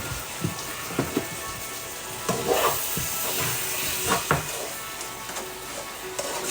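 Food sizzling in a frying pan, with a handful of short knocks and clatters from kitchen utensils.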